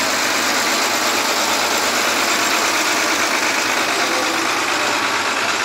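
An old truck's engine running steadily at close range as the truck rolls slowly.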